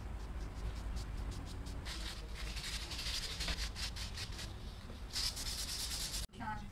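Hand sanding of a statue's primed surface: quick, repeated scratchy strokes of sandpaper under a gloved fingertip, over a steady low hum, cut off abruptly near the end.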